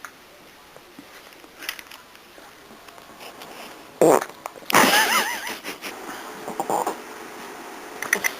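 A dog belching loudly about four seconds in: a short burst, then a longer wavering one.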